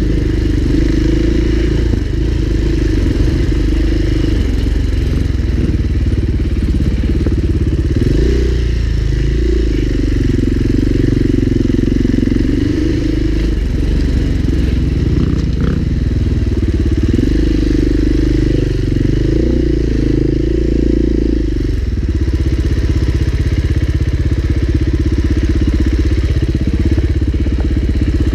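Husqvarna four-stroke dirt bike engine running at low revs, the throttle opening and easing off in stretches. It settles into a steadier, lower run about three quarters of the way through.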